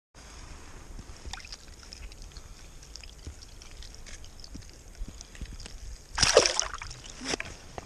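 Water sloshing and splashing in a hole drilled through lake ice as a fish is slipped back in and a hand dips into the water, with small wet clicks and drips. A brief, louder burst of noise comes about six seconds in, and a smaller one just after seven seconds.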